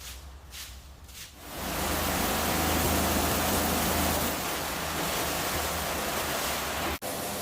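A few soft swishes, then a loud, steady rushing hiss with a low hum underneath starts about a second and a half in and runs on, dropping out for a split second near the end.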